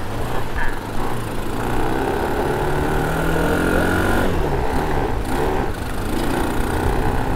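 ATV quad bike's small engine running under way. Its pitch climbs gradually, drops sharply about four seconds in, then holds steady.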